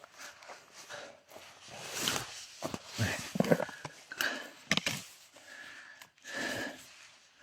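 Footsteps and rustling through forest undergrowth, with a few sharp clicks and snaps; a short steady high tone sounds about two-thirds of the way through.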